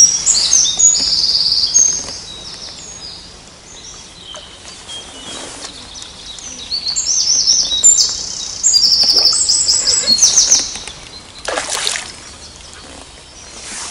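A songbird singing loud, fast, high trills in two spells, the second starting about halfway through, with a short splash near the end from a hooked carp thrashing at the surface.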